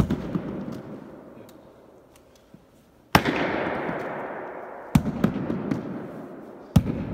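A baseball smacking sharply against a wall and the hardwood floor of a gym during a fielding wall drill: four hard hits, each ringing out in a long echo, with a few lighter bounces between them.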